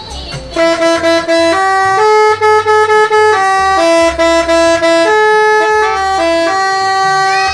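A bus's telolet horn, a set of tuned electric air horns, playing a loud stepped melody. Several horn tones sound together and change note every fraction of a second; the burst starts about half a second in.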